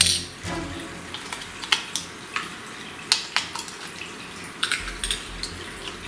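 Irregular light clicks and taps of small plastic toy parts being handled at an opened battery compartment.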